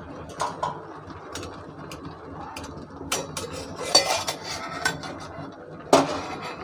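Pot lid and cookware clinking and knocking as the lid is lifted off the pan where the caramel egg pudding steams; scattered clinks, the loudest clank about six seconds in.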